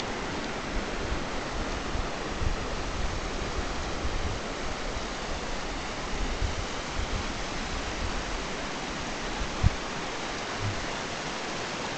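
Steady rushing of hot-spring runoff and creek water flowing over rocks, with a few low bumps and a sharper low thump near the end.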